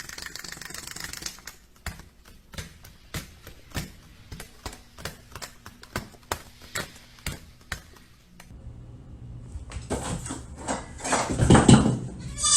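A run of irregular sharp taps and clicks, several a second, followed near the end by a louder rushing, scuffling noise.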